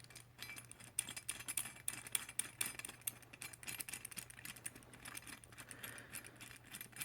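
Screwdriver turning a mounting screw into the electronic deadbolt's mounting plate by hand: a run of faint, quick, irregular clicks and scrapes.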